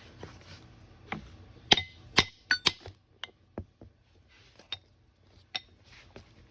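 Metal parts and tools clinking and knocking as they are handled. A quick run of loud, ringing clinks comes about two seconds in, followed by scattered lighter taps.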